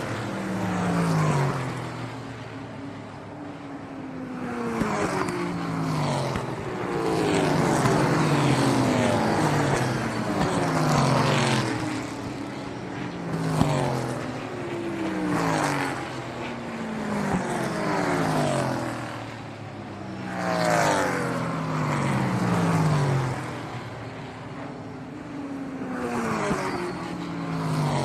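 Racing cars speeding past one after another, every second or two, each engine note sweeping down in pitch as the car goes by.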